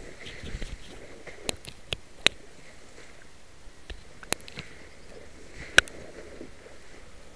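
Camera handling noise: soft rustling broken by five sharp clicks and taps, the loudest near the end, as a hand works close over the camera.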